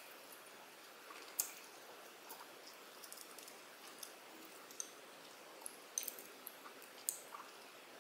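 Quiet mealtime sounds: a wooden spoon and chopsticks click sharply now and then against ceramic bowls and plates, with soft wet sounds of food moved through sauce in between.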